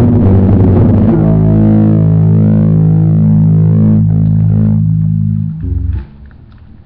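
Distorted guitar playing loudly: fast strumming, then a chord held and ringing for about four seconds, a short final stab, and the playing stops suddenly.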